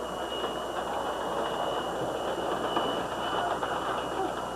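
Model train running along its track, with a steady high whine over fine clicking wheel clatter.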